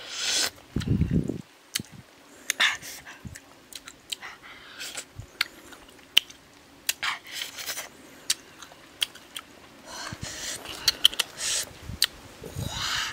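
Close-up eating sounds: a person chewing and smacking on grilled fish, with scattered clicks and crackles as the charred fish is picked apart by hand. A brief muffled low rumble about a second in.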